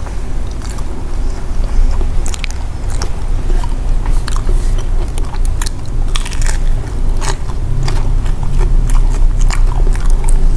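Close-miked biting and chewing of fried sweet potato and cassava balls, with many scattered crunchy clicks over a low rumbling chew.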